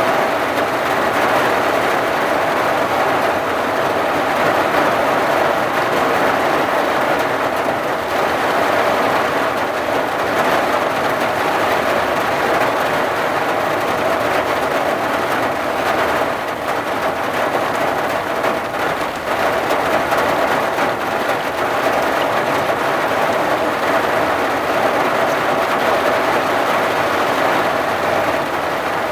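Steady rain falling on a vehicle's roof and windshield, heard from inside the cab, with a faint steady hum underneath.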